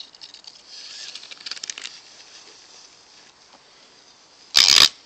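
Rustling and crackling of movement through dry grass and twigs on a forest trail, densest in the first two seconds, then a brief loud thump near the end.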